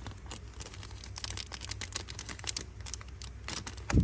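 Rapid small clicks and taps of a metal Zippo lighter being handled, with a louder dull thump at the very end.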